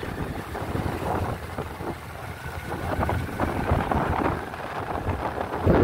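Wind buffeting the microphone of a moving vehicle, over a low road rumble, rising and falling in gusts. It gets much louder near the end.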